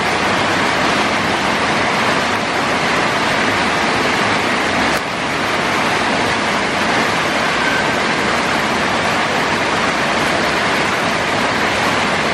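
Heavy tropical downpour: a steady, even hiss of rain pouring onto a flooded street.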